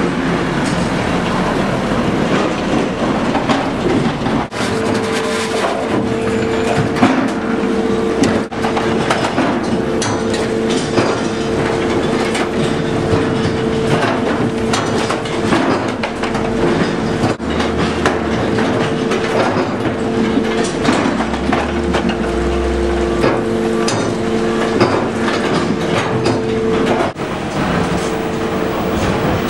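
Sawmill log-sorting line machinery running: continuous clattering and knocking of logs and conveyor. A steady mechanical whine joins about four and a half seconds in, and there are low thuds around the middle.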